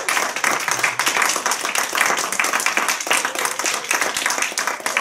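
A small audience applauding, with dense, steady clapping and one pair of hands clapping close by.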